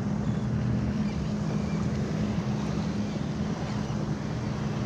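A steady low hum, two held tones, over wind noise on the microphone and the wash of open water.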